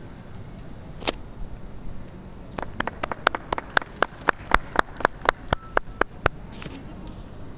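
A single hand clap about a second in. From about two and a half seconds in, a short run of sharp claps at about four a second, which stops suddenly a little after six seconds.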